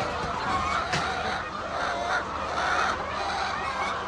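A flock of poultry calling over one another in many short overlapping calls, with a couple of sharp knocks near the start and about a second in.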